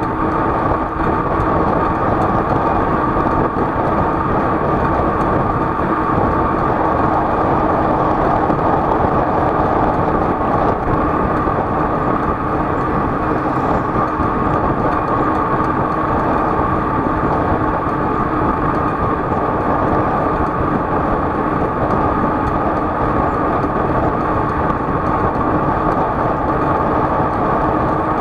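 A vehicle travelling at a constant speed, making a loud, even running noise with a steady hum that holds unchanged throughout.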